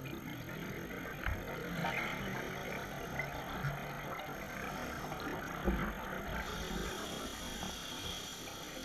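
Scuba divers breathing through their regulators underwater: exhaled air bubbling out in uneven bursts, with a couple of short low thumps.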